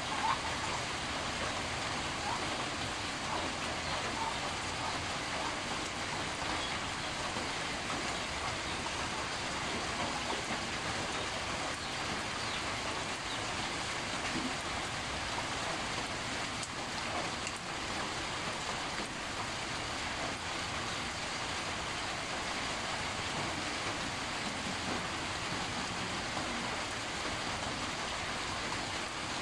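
Steady rain falling on dense tropical foliage, drops hissing evenly on palm fronds and broad leaves.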